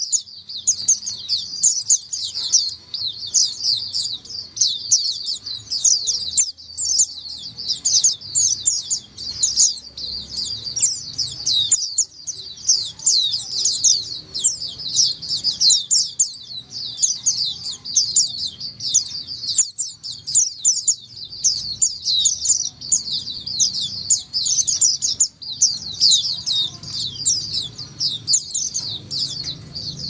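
A flock of caged white-eyes (pleci) singing together: a dense, continuous chorus of rapid, high, thin chirps and twittering trills, many voices overlapping without a pause.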